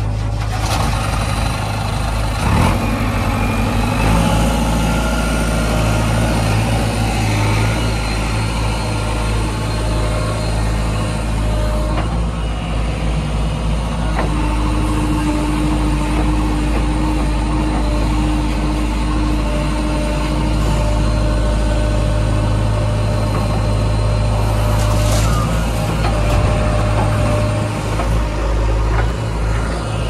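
Heavy diesel engines of JCB 3DX backhoe loaders and a tipper truck running steadily, with a few sharp knocks.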